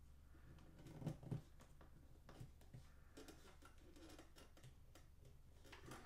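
Faint handling of a plastic action figure as small goggles are fitted onto its head: quiet clicks and ticks of plastic parts, the two loudest close together about a second in.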